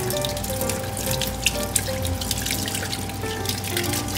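Tap water running and splashing into a stainless steel sink as a bunch of mitsuba is rinsed by hand under the stream, with background music.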